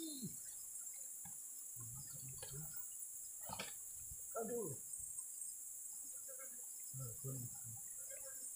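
Steady high-pitched insect chorus, with a few faint, brief sounds underneath.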